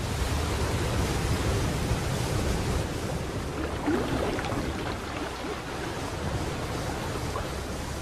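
Waterfall and fast river water rushing steadily over rocks.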